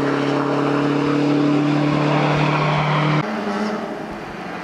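Lancia Delta Integrale's turbocharged four-cylinder engine at high revs under load, holding a steady pitch. About three seconds in the sound cuts abruptly to a quieter, lower engine note of the rally car coming up the road from further off.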